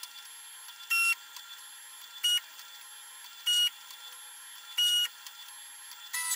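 A 3D printer's stepper motors whining briefly as the print head and bed jump between probe points during automatic bed-leveling mesh probing. There are five short pitched whines about 1.2 seconds apart, with a faint steady hiss between them.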